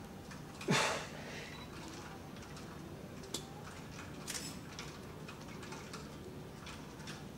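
A man's sharp, forceful exhale from the effort of a heavy overhead dumbbell triceps extension, its pitch dropping, about a second in. A few faint short clicks and breaths follow.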